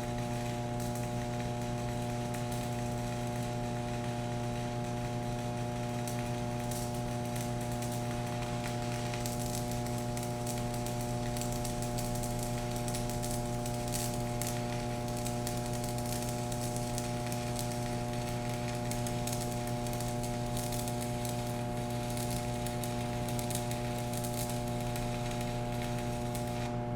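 Stick welding arc at 80 amps crackling and sizzling as a bead is run, with frequent sharp crackles throughout. A steady electrical hum sits under it and is the loudest part.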